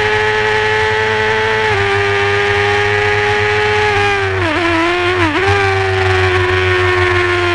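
Honda supersport race bike's engine heard from onboard, held at high revs, with a slight drop in pitch early on, two quick dips and recoveries in pitch around the middle, then a slowly falling pitch.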